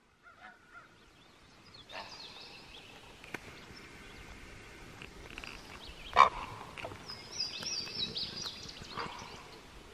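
Wild birds calling: scattered chirps and whistles over a steady low hiss, with one brief louder sound about six seconds in and a quick run of high, falling notes a little before the end.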